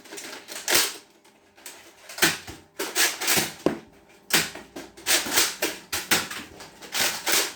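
Foam-dart blasters being fired and handled: a dozen or so sharp clicks and thwacks at irregular intervals, coming faster in the second half.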